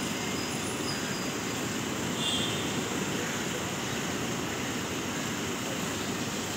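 Steady outdoor street noise, a constant hiss-like rumble of surrounding traffic, with a few faint brief high tones about two seconds in.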